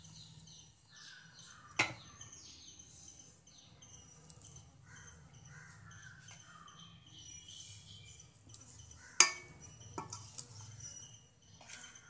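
Birds chirping and calling over and over in short falling notes, with two sharp knocks of steel dishes being handled, about two seconds in and, louder, near nine seconds.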